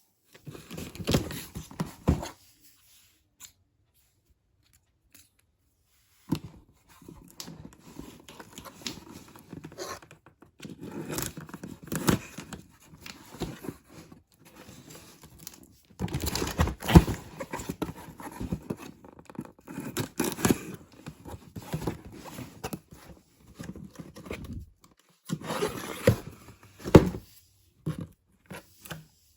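Shoe packaging being opened and handled by hand: tearing, crinkling and scraping of paper and cardboard in irregular bursts, with a few seconds of quiet near the start.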